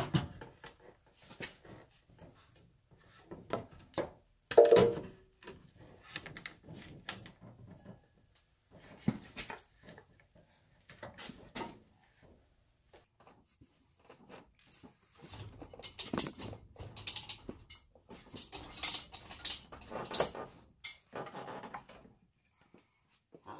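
Scattered metal knocks, clunks and scraping as an engine is levered with a bar and worked down into a car's engine bay. One sharp knock about five seconds in is the loudest, and a run of scraping and rattling comes in the last third.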